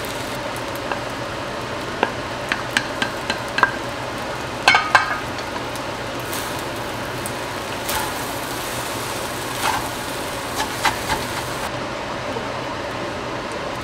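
Fried rice sizzling in a wok over a gas burner while it is stirred and turned with a wooden spatula. Scrapes and knocks of the spatula against the pan come in clusters, a run of quick taps about two seconds in and the loudest knocks about five seconds in, over a steady hiss.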